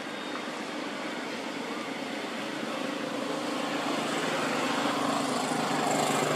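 Motorbike engine running steadily, growing gradually louder as it approaches.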